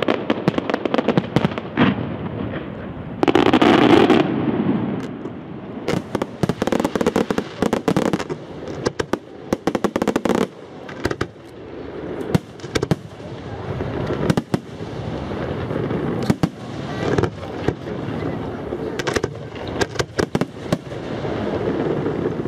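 Aerial fireworks going off in quick succession: many sharp bangs and crackles, with a loud, longer blast about three seconds in.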